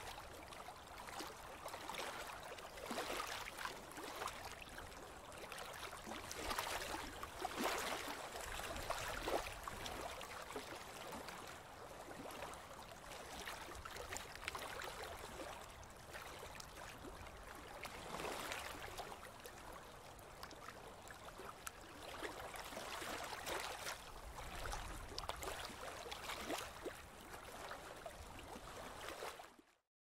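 River water lapping and gurgling in small ripples, swelling and easing every few seconds with little splashes. The sound cuts to silence for a moment near the end.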